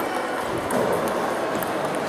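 Table tennis ball in a doubles rally, giving a few sharp clicks off the paddles and table, over steady background noise of a busy hall.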